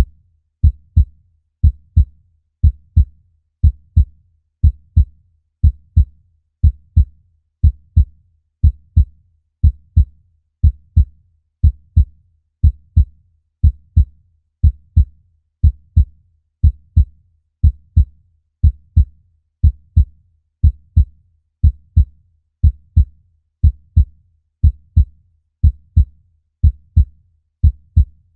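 Human heartbeat, steady and slow: a low double thump (lub-dub) about once a second, repeating evenly.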